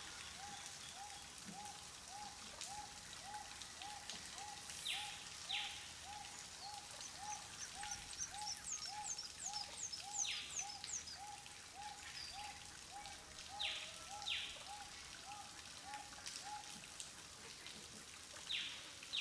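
Rainforest ambience of calling animals. A low call repeats about twice a second for most of the time, sharp sweeping calls come every few seconds, and a quick run of high falling chirps sounds in the middle.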